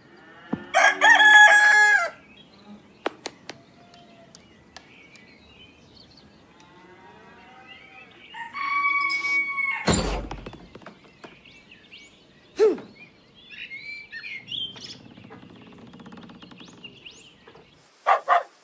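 Rooster crowing loudly about a second in, then a second crowing call around eight and a half seconds in that ends in a loud thump.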